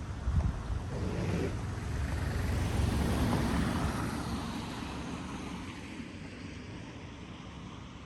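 A vehicle passing by in the street, its noise growing to a peak about three seconds in and then fading away.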